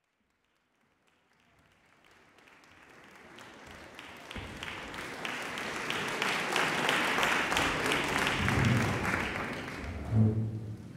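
Concert audience applauding, the sound fading in gradually, at its fullest past the middle and dying away near the end. A couple of low thuds sound in the last few seconds.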